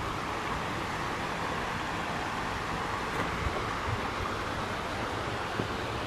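Steady rush of flowing water from a rocky mountain stream and its cascades, an even hiss with no breaks.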